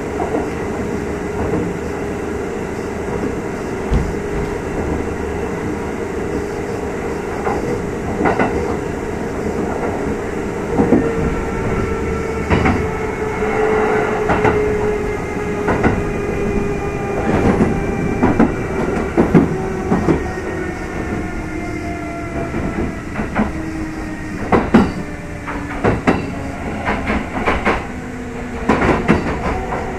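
Kintetsu 2800 series electric train (motor car Mo 2813) running on the rails: a whine from the traction motors and gears holds steady for the first half, then falls steadily in pitch as the train slows. Sharp rail-joint clicks from the wheels come throughout and grow more frequent near the end.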